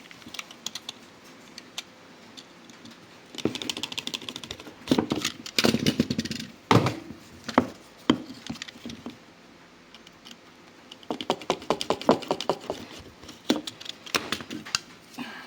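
Hand tools and small parts being handled in motorcycle fuel-line work: short clicks, knocks and rattles. They come in two busy clusters, one from about three to seven seconds in and another about eleven to thirteen seconds in.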